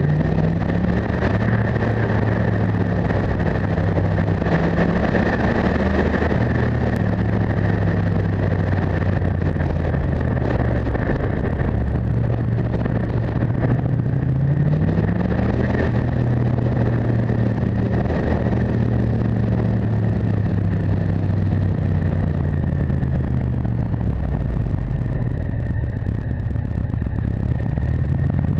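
Motorcycle engine running under way with wind rushing over the microphone. The engine pitch drops and climbs again several times as the rider brakes and accelerates through the bends, rising again about halfway through and near the end.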